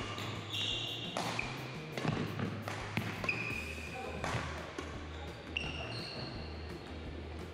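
Badminton rally: sharp racket strikes on the shuttlecock a few times, and sneakers squeaking briefly on the wooden court floor several times. A steady low hum runs underneath.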